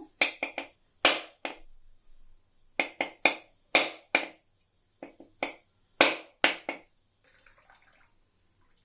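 A whole coconut's hard shell being struck again and again along the ridge line between its three eyes to crack it open: about fifteen sharp knocks in uneven clusters of two or three.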